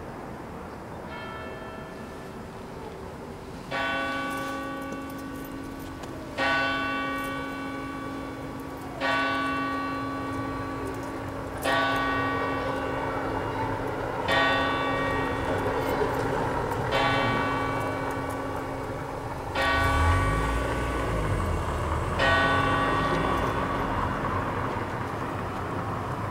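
A church bell tolling slowly, one stroke about every two and a half seconds, each stroke ringing on into the next, after a faint first stroke. A low rumble comes up briefly about twenty seconds in.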